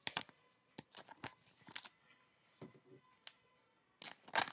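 Trading cards being handled and slid into clear plastic card sleeves: a few short rustling swishes and scrapes, the loudest near the end.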